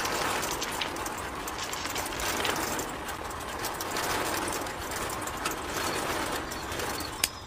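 Small electric motor driving a miniature sand-sifting machine: its bucket elevator and shaking sieve rattle steadily as sand and gravel pour through. The rattle starts abruptly and stops with a click near the end as the machine is switched off.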